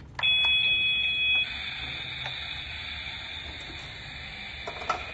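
Electronic sound effect from a battery-powered plastic toy kitchen appliance. A click is followed by a loud two-tone beep lasting about a second, then a quieter steady electronic tone that keeps going. A few plastic clicks come from the toy's buttons or doors, including a sharp one near the end.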